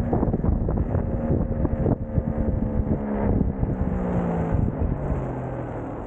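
Kingsong S22 Pro electric unicycle riding on asphalt: the hub motor's whine and the knobby tyre's rumble, with heavy wind buffeting the microphone. About halfway through the whine falls in pitch as the wheel slows.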